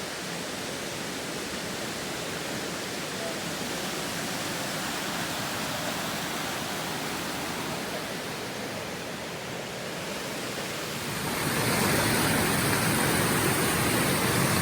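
Waterfall: a steady, dense rush of falling water. About eleven seconds in, a louder rushing noise takes over abruptly.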